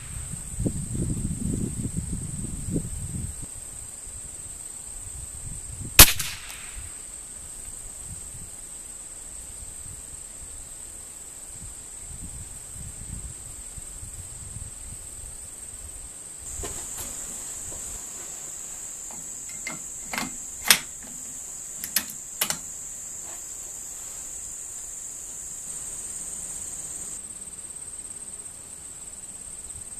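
A single .22 rimfire rifle shot cracks sharply about six seconds in. Four or five fainter sharp cracks come about twenty to twenty-two seconds in, over a steady high-pitched chirring of insects.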